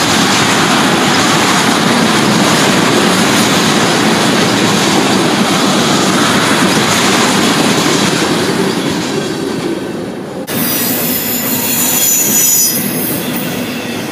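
Freight train of tank cars and hoppers rolling past at close range: a loud, steady rumble and rattle of wheels on rail. About ten and a half seconds in, the sound cuts abruptly to a hissier noise.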